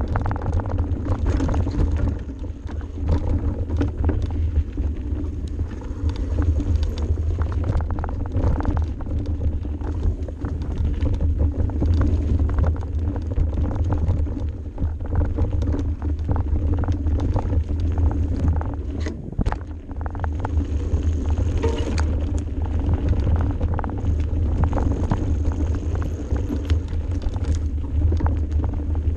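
Mountain bike descending a steep, rough dirt single track: a constant low rumble of tyres and wind on the on-bike microphone, with frequent rattles and knocks from the bike jolting over roots and rocks.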